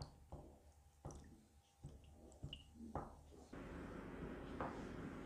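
Stirring stick working thick high-build primer in a plastic mixing cup: faint taps, scrapes and soft squelches. About three and a half seconds in, a steady low background hum sets in.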